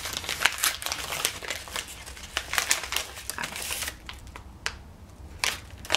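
A paper bag crinkling and rustling as it is opened by hand, in a rapid run of small crackles that thins out to a few sharp crinkles over the last couple of seconds.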